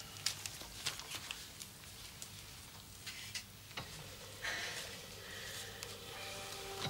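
Quiet room tone with a low steady hum, a few faint clicks and a soft rustle; a held musical note comes in near the end.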